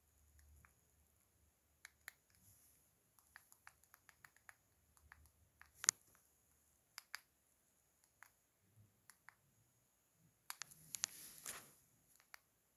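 Faint, scattered clicks and taps from a smartphone being handled in the hand, with a sharper click about six seconds in and a brief rustle with a few clicks near the end.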